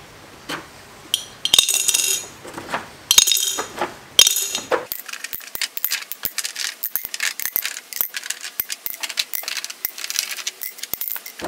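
Small steel sockets dropped one by one into a glass jar, clinking and ringing off the glass a few times. From about five seconds in comes a quick run of lighter metal clicks and clinks.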